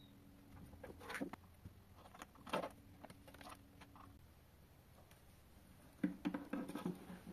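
Faint handling noises: a few soft knocks and rustles as wires and small circuit boards are handled, with a cluster near the end, over a faint steady hum during the first four seconds or so.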